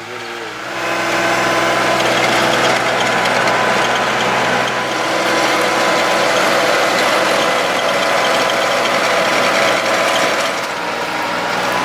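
Engine running steadily with a rattling, gear-like mechanical clatter over it, as seed or fertilizer is spread. It builds up during the first second, then holds steady.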